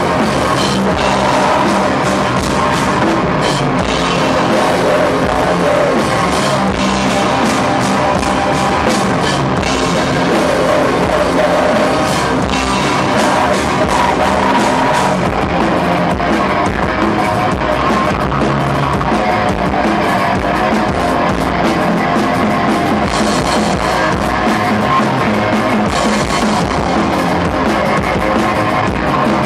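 Live metal band playing loud: electric guitars, drum kit and vocals, recorded on a VHS-C camcorder.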